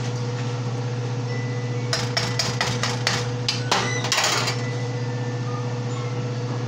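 A cooking utensil knocked against the rim of a pot: a quick series of about ten sharp taps over two seconds, ending in a short rattle, over a steady low hum.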